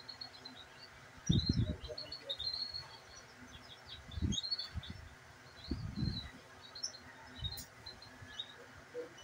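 Domestic canaries chirping in quick runs of short, high notes. A few low rustling thumps come through, the loudest about a second in, with more near four and six seconds in.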